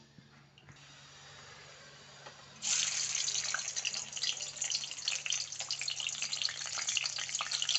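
A piece of turmeric-and-salt-marinated fish frying in hot oil in a kadai: a dense sizzle full of crackling pops that starts abruptly about two and a half seconds in, after a faint hiss.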